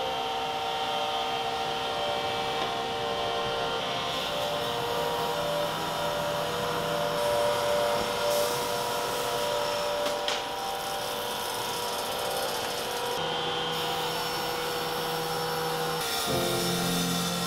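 Sliding table saw running, its blade cutting through wooden boards as they are pushed across the table.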